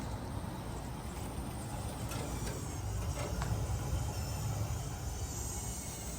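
1995 Bard 5-ton wall-hung heat pump running in cooling mode: a steady low mechanical hum from its compressor and fan, with a couple of faint clicks.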